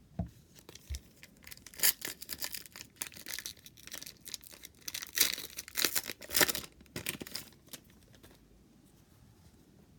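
The wrapper of a 2019 Donruss football card pack being torn open and crinkled: a run of sharp ripping and rustling noises that stops about two and a half seconds before the end.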